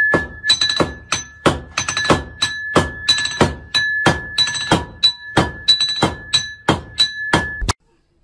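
Music with a hard, regular thumping beat, about two strong hits a second with lighter ones between, over a steady high tone; it cuts off suddenly near the end.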